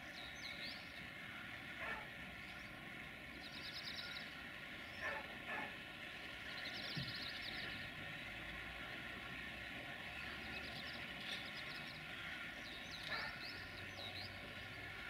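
Steady distant rumble of an approaching diesel freight locomotive, a CFR Class 60 (060-DA / LDE2100) diesel-electric, with birds singing in short high trills every couple of seconds over it. A few faint knocks come through, around two, five and thirteen seconds in.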